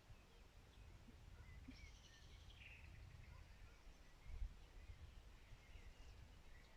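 Faint, distant birds calling: scattered short chirps, with a longer call about two seconds in, over a soft low rumble that swells briefly a little past the middle.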